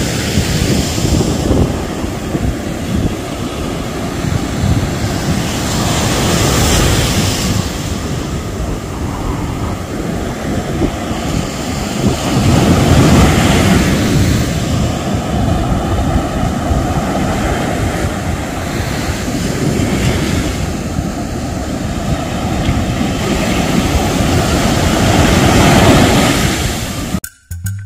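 Surf breaking and washing up a sandy beach, with strong wind rumbling on the microphone; the wash swells and ebbs every six or seven seconds, then cuts off shortly before the end.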